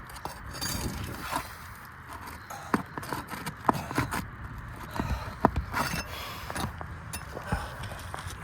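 Irregular sharp knocks and scrapes of work on an asphalt shingle roof, as shingles are pried up and their nails pulled for a replacement.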